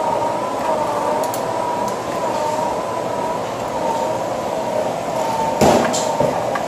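Battery-powered electric motor spooling fishing line onto a reel, a steady whine that wavers slightly in pitch, with two short knocks near the end.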